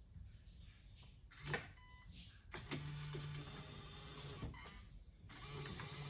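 eufy Smart Lock Touch's motor driving the deadbolt during its calibration. A click and a short electronic beep come about a second and a half in, then the motor whirs for about two and a half seconds and runs again briefly near the end.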